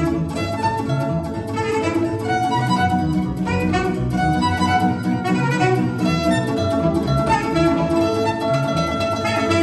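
Live violin and clarinet playing a melody together over electronic keyboard accompaniment, with a steady, rhythmic bass-and-chord pattern underneath.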